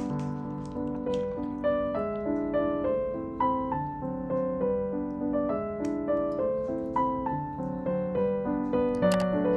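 Piano music: a melody of single notes over held lower notes at an unhurried pace.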